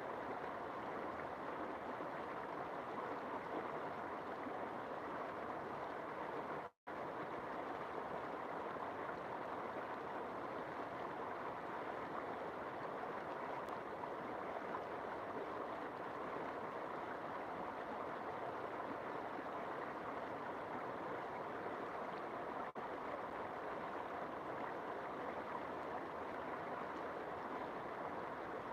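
River water flowing steadily, an even rushing noise. The sound cuts out for a split second once, about a quarter of the way through.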